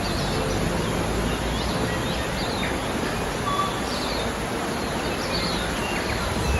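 Steady rush of a mountain stream, with small birds chirping over it in short, high, falling chirps about once a second.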